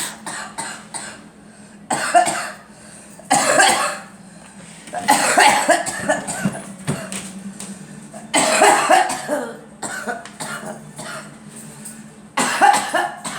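A girl coughing in about five separate fits, each lasting from under a second to about a second and a half, over a steady low hum.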